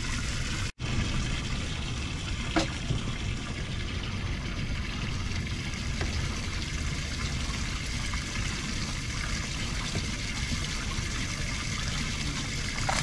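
Steady trickling, running water, with all sound dropping out for an instant just under a second in and a single faint click about two and a half seconds in.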